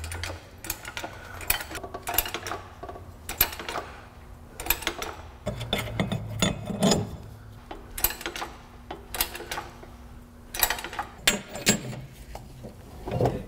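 Irregular metallic clinks and knocks from a Honda K-series engine and transmission being lowered on a hydraulic shop engine hoist and guided by hand into the engine bay, over a low steady hum.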